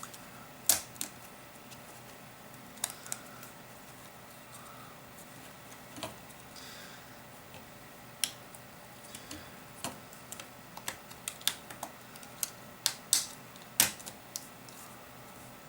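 Sharp clicks and taps of small plastic smartphone parts being handled and pressed into place as a replacement LCD is seated in the phone's frame. A couple of clicks come near the start, then more frequent ones from about nine seconds in, over a faint steady hum.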